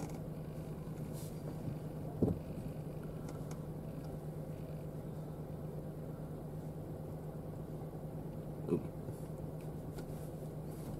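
Car engine idling, a steady low hum heard from inside the cabin, with two brief soft sounds about two seconds in and again near nine seconds.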